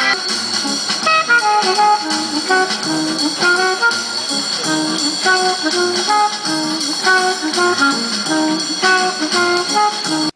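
Recorded jazz saxophone music: a tune of short, separate notes at a steady level, breaking off suddenly at the end. It is the backing track that a marionette saxophonist mimes to.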